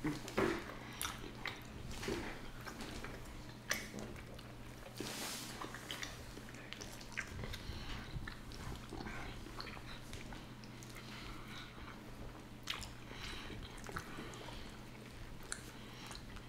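Close-miked eating of a seafood boil: chewing and biting, with scattered short wet clicks and smacks.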